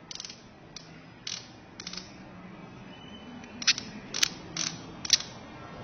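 Ratchet knob of a micrometer screw gauge clicking as it is turned: a few scattered clicks, then a louder, quicker run in the second half. The ratchet is slipping as the spindle closes firmly on the tuning fork's handle.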